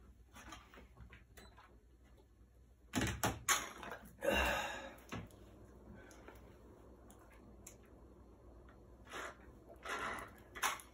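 Sipping and slurping from a small drink carton: a few short noisy bursts about three to five seconds in and again near the end.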